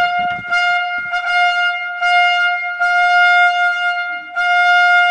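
A trumpet blowing one high note in several long blasts, the last held.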